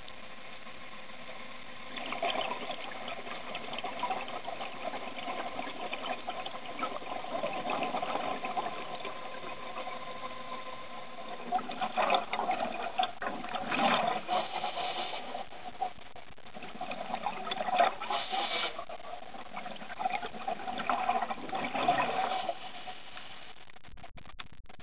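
Underwater recording of scuba regulator exhaust bubbles bubbling in repeated surges, over a steady mechanical hum. The bubbling starts about two seconds in and stops shortly before the end.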